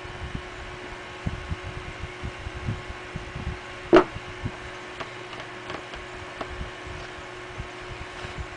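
Handling sounds of an iPod Touch being wiped down with a glass-cleaner-dampened paper towel: soft low bumps and knocks, with one sharp tap about four seconds in and a few lighter ticks after it, over a steady hum.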